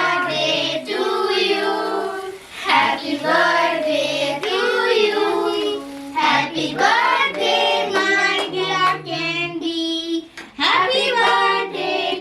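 A song sung by children's and women's voices, with held notes over a steady low accompaniment.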